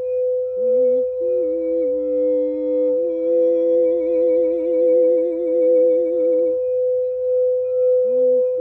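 Sound-healing drone: a steady, held singing-bowl tone with a lower wavering, humming tone that glides and steps between pitches with a slow vibrato, dropping out for a while near the end and returning briefly.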